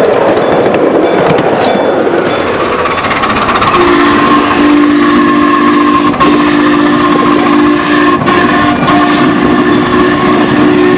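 Live steam miniature locomotive 401, a 7.5-inch gauge model of a Union Pacific 4-8-4, with its riding cars rattling along the track. From about four seconds in, its several-note whistle sounds in long held blasts with a few short breaks, to the end.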